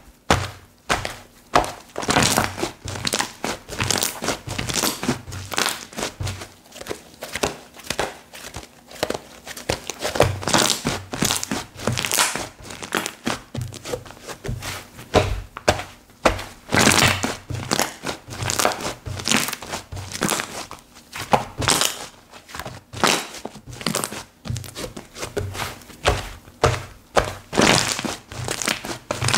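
Hands playing with slime: squeezing, poking and stretching it in a quick, irregular run of short squishes and crackles.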